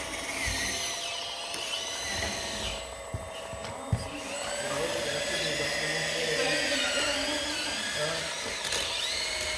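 Whine of an RC scale construction model's small electric motors and hydraulic pump, the pitch rising and falling as the machine works, with two sharp clicks about three and four seconds in.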